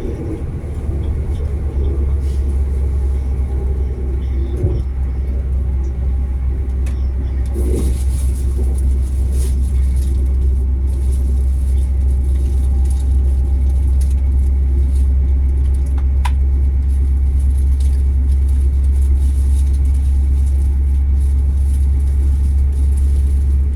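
Diesel train running along the track, heard on board: a steady low rumble, with a higher hiss of wheels on rail joining about eight seconds in.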